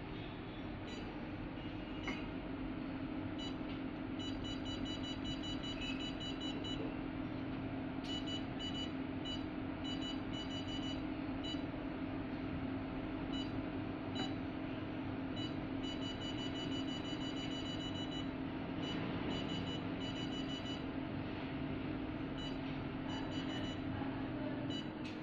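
Radio-frequency skin-tightening machine beeping as its touchscreen is pressed: single beeps and quick runs of beeps, several a second, like a button held to step a setting up or down. A steady low hum from the machine runs underneath.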